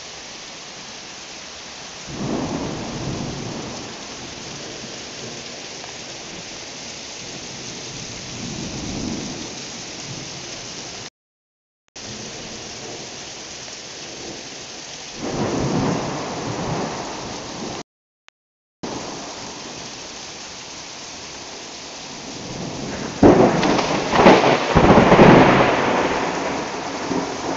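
Heavy rain falling steadily in a thunderstorm, with rolls of thunder rumbling a few times and a loud, close crack of thunder near the end, the loudest event. The sound cuts out completely twice, briefly.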